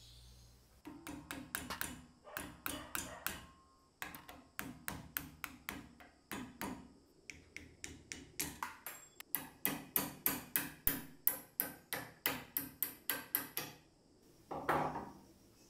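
A long series of sharp metallic clicks with a short ring, from the rusty mechanism of an antique Fermat circular tile cutter worked by hand at its crank and spring-loaded shaft. They come in irregular groups at first, then settle into a steady run of about three a second, ending in a louder clatter near the end.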